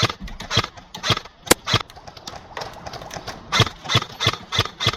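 Airsoft rifles firing single shots, about a dozen sharp cracks at an uneven pace with a short lull in the middle.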